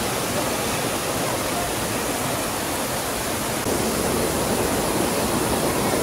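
Mountain stream water cascading over boulders in a small waterfall: a steady rushing splash, a little louder from about halfway through.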